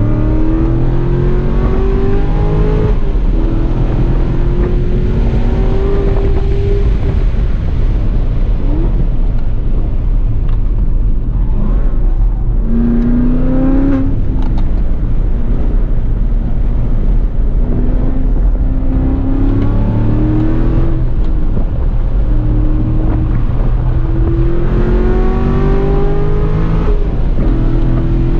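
C7 Corvette Grand Sport's 6.2 L LT1 V8 at full throttle on track, rising in pitch through the gears again and again, with breaks in between where it comes off throttle. Heavy wind and road rumble sit under it throughout.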